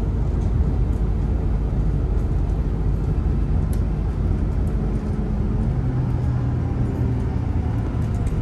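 Engine and road noise of a moving bus heard from inside the passenger cabin: a steady low rumble with an engine hum that grows stronger about halfway through, and a few faint clicks.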